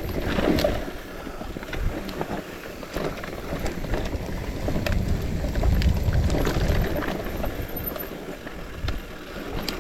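Bicycle ridden over a rough, muddy trail: tyre and ground rumble with scattered rattling clicks, and wind buffeting the microphone, heaviest around six seconds in.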